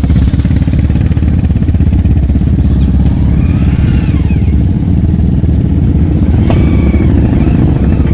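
Several off-road motorcycle and ATV engines running steadily at close range, mostly at idle, as a rapid low engine pulse.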